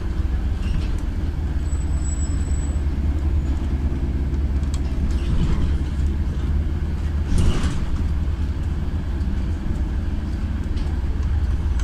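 Interior of a LiAZ 5292.67 city bus on the move: the steady low drone of its YaMZ-53624 compressed-natural-gas engine under road and cabin noise. A brief louder rush of noise about seven and a half seconds in.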